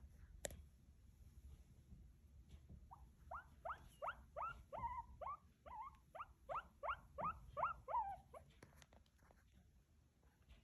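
A small pet giving a run of about a dozen short squeals, each rising in pitch, about three a second. They start a few seconds in and stop shortly before the end.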